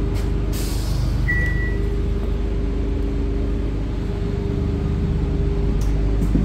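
Interior drone of an idling 2016 Gillig BRT transit bus, heard from inside the cabin: a steady low hum with a couple of steady low tones. A single short high beep sounds about a second in.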